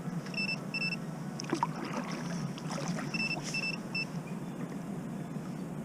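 Steady noise of water and wind around a kayak on choppy harbour water, with a few faint clicks. Short high electronic beeps sound twice about half a second in and three times about three seconds in.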